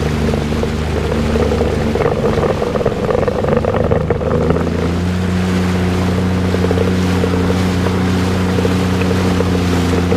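Jet ski engine running under way, with wind noise on the microphone. A couple of seconds in, its note wavers and breaks up for about two seconds, then settles steady again.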